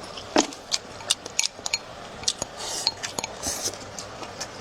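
Eating utensils clicking and clinking against bowls and plates: many short, sharp clicks at an irregular pace, with a couple of brief soft rustles about halfway through.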